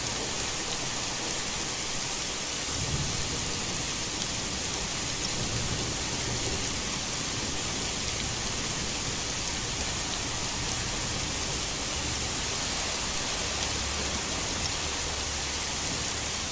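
Heavy rain pouring in a steady hiss, with low thunder rumbling in about three seconds in and rolling on and off through the rest.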